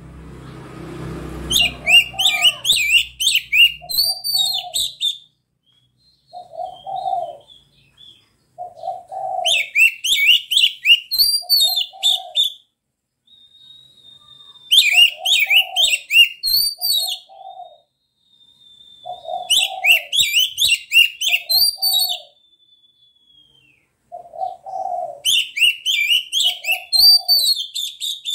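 Oriental magpie-robin (kacer) singing in loud bursts of rapid, varied high phrases about every six seconds, with long thin whistles between them. Short, low dove coos repeat steadily through it every second or two.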